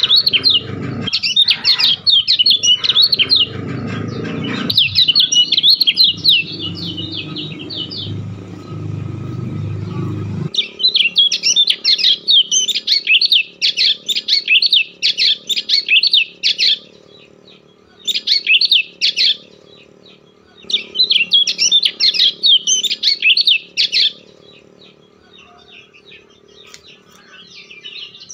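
A bird singing fast, high chirping trills in bursts of a few seconds with short pauses between. A low rumbling noise runs underneath and cuts off suddenly about ten seconds in.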